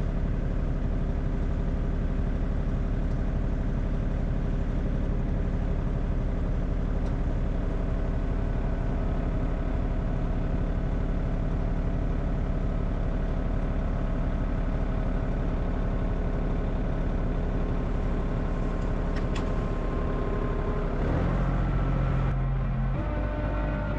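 A vehicle engine running steadily, with a steady low hum. About 21 seconds in, its pitch shifts and the low hum grows louder, as with a change in engine speed.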